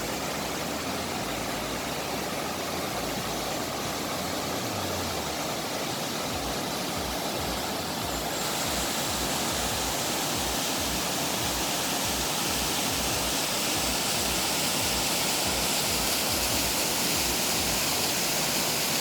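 Steady rush of water from a waterfall and the river below it, becoming a little louder and brighter after about eight seconds.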